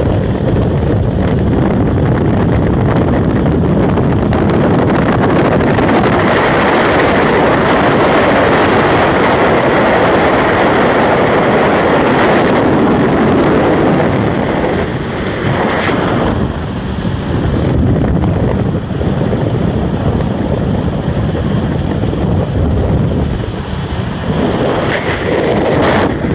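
Heavy wind buffeting the microphone of a boat running at speed, with the outboard motor and the hull on the water underneath; it eases a little and comes in gusts about halfway through.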